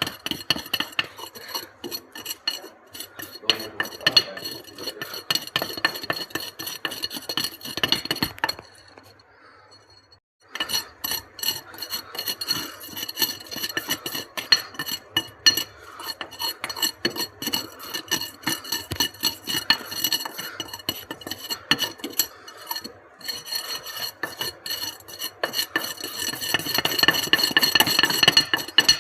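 Irregular scraping, clicking and clinking of hand tools on hard material, with a pause about nine seconds in.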